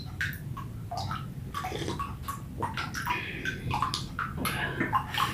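Water running and splashing into a small fish pond, with scattered light clicks and knocks.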